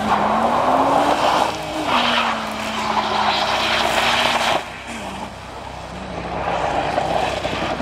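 Audi estate car's engine revving hard while its tyres spin and slide on loose gravel and dirt, with a hiss of thrown grit. The revs climb over the first second and a half, hold high, then drop off sharply about four and a half seconds in.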